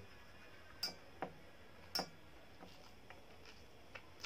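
Eating rice by hand: a few sharp wet clicks and smacks, three louder ones in the first two seconds, then a few softer ones.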